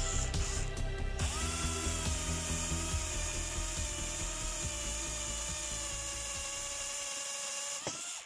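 Parkside PBHA 12 A1 12 V cordless hammer drill boring into a wooden plank with a drill bit in its keyless chuck. The motor gives a steady whine over a low rattle, picks up pitch about a second in, and cuts off sharply at the end.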